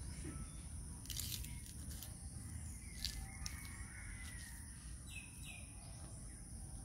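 Outdoor ambience: a steady high-pitched drone over a low rumble, with a few short bird chirps, two of them close together about five seconds in.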